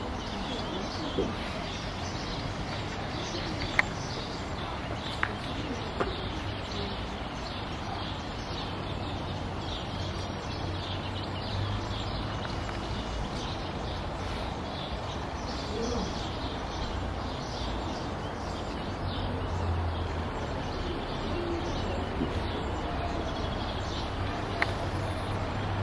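Train Jaune electric railcar, fed at 850 V DC from a third rail, approaching slowly: a low motor hum that grows louder in the second half, with a few sharp clicks in the first six seconds and birds chirping throughout.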